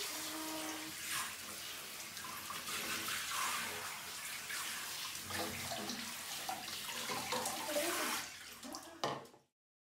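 Handheld shower sprayer running, water splashing onto a dog's coat and into a plastic tub, a steady rushing hiss that cuts off suddenly near the end.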